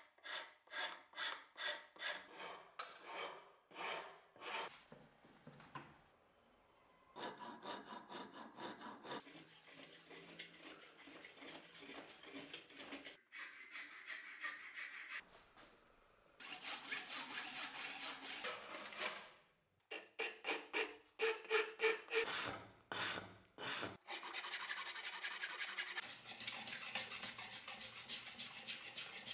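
Hand rasp scraping along a birch wood axe handle held in a vise. Repeated strokes, about two a second at first, come in short stretches that start and stop abruptly.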